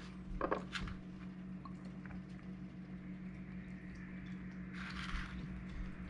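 Faint handling sounds of a taco being topped on a plate: soft rustles and light taps, with a short rustling burst about five seconds in, over a steady low hum.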